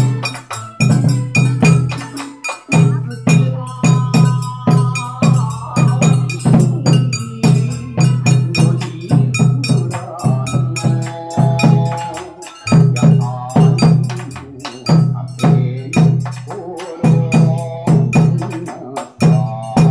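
Taiko drum beaten in a steady rhythm, about two strokes a second, over bon odori dance music with a held melody line.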